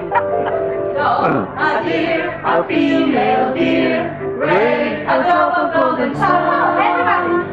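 A song with singing voices over musical accompaniment.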